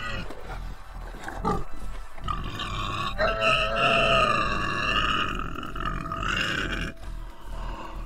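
African wild dogs and a spotted hyena fighting over a kill, giving wavering high-pitched cries and growls, the longest run of calling in the middle of the stretch. Background music plays underneath.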